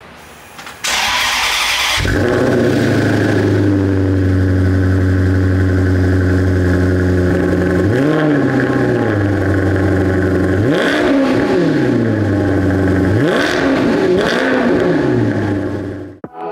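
2009 Maserati GranTurismo S's 4.7-litre Ferrari-derived V8 starting up with a loud rush of noise that settles into a steady idle, then revved four times in short throttle blips, the pitch rising and falling with each. The sound fades out near the end.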